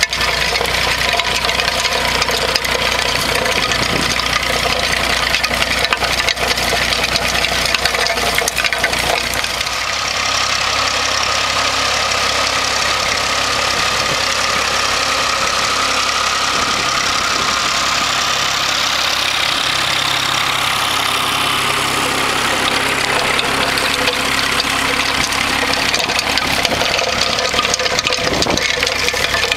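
Massey Ferguson 135 tractor engine running steadily as it pulls and drives a Ferguson potato spinner lifting potatoes, the spinner's tines throwing soil. The sound changes about ten seconds in.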